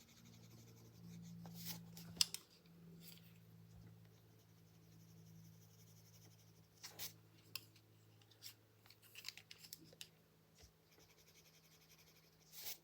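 Coloured pencil scratching faintly on paper as it shades, with a few light taps, over a faint low hum.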